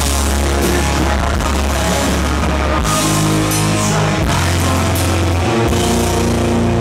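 Live rock band playing loud: electric guitars, bass and a drum kit with several cymbal crashes in the middle, under a male lead singer.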